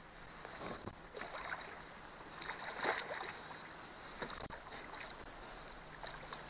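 Water splashing and sloshing as a big hooked catfish thrashes at the surface beside a canoe: several soft splashes, the strongest about three seconds in.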